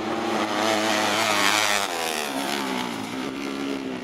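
Engines of small dirt-track racing buggies revving hard as they race past, the pitch climbing and falling with each throttle change and loudest about a second in.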